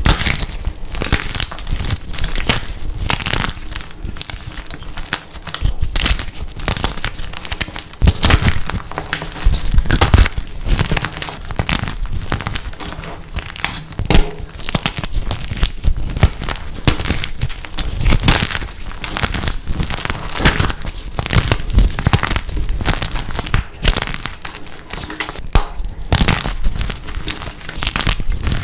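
Blocks of dyed gym chalk being crushed and crumbled: a dense, irregular run of sharp, crisp crunches and crackles.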